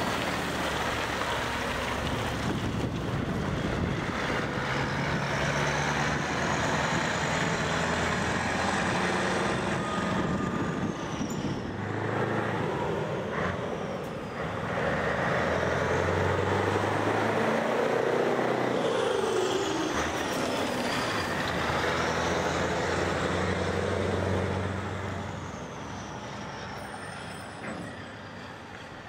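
Heavy trucks with tipper trailers driving across a yard: diesel engines running, their pitch rising and falling as they pull away and change gear, with a faint whistle riding on top. The sound fades near the end as a truck drives off.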